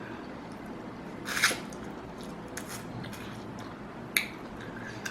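Close-up mouth sounds of a person biting and chewing a sauce-coated chili prawn, with one loud wet burst about a second and a half in and a sharp click about four seconds in.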